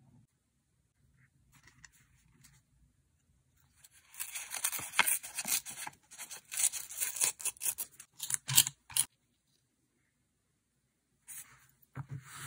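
A sheet of thin printed paper being torn by hand in a run of quick, crackling rips lasting about five seconds, followed near the end by a brief rustle of paper.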